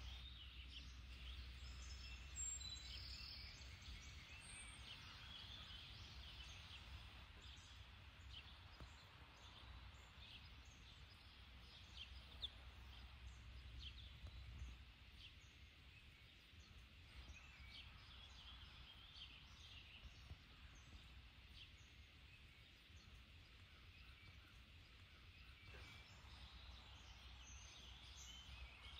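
Near silence: faint outdoor ambience with scattered small bird chirps, and a low hum that drops away about halfway through.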